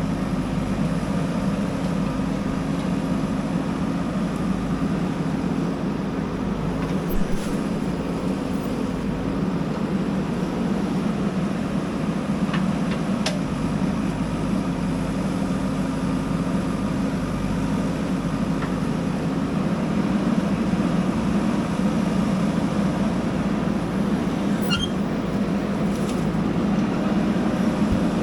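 Diesel engine of a JCB backhoe loader running steadily, with a few faint knocks along the way and the engine getting a little louder in the last third.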